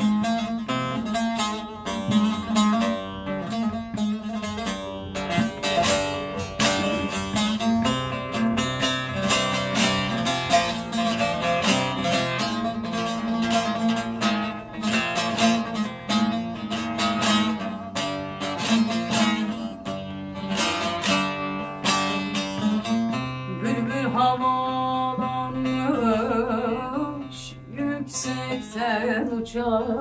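Bağlama (long-necked Turkish saz) playing a rapidly picked instrumental introduction to a Turkish folk song in the hicaz mode. A woman's singing voice comes in over it near the end.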